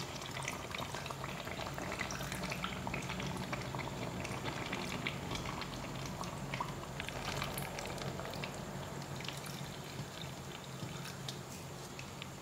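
Water poured in a steady stream into a plastic jar packed with sliced bamboo shoots, splashing and bubbling with many small crackles as it fills the gaps between the pieces; the jar is being topped up so the shoots are covered for pickling. A steady low hum runs underneath.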